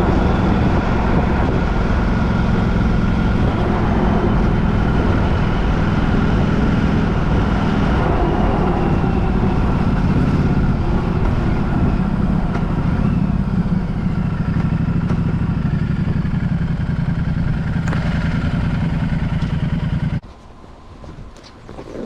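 A motor vehicle running steadily on the move, with engine hum and road noise; it cuts off abruptly near the end.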